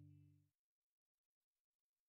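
The final held chord of a pop song dying away, gone about half a second in, then silence.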